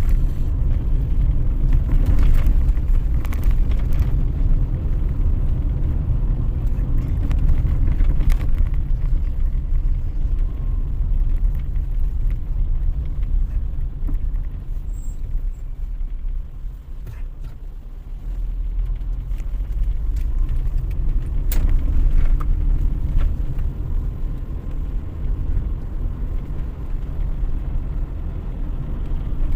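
Car on the move in traffic: a steady low rumble of road and engine noise that eases briefly a little past halfway, with a few faint clicks.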